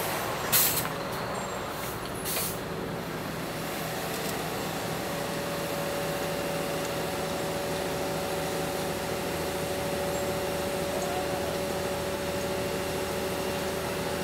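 Heavy diesel machinery running steadily, with a hum and a few held whining tones. Two short blasts of air hiss come about half a second and two and a half seconds in, like an air-brake release.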